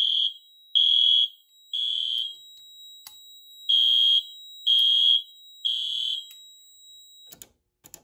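Fire alarm sounder on a Fire.Lite MP-12 control panel in alarm, tripped by the manual pull station: a high pulsing beep about once a second, four beeps, a pause, then three more, stopping about six seconds in. A faint steady high tone runs under the beeps and ends about a second later.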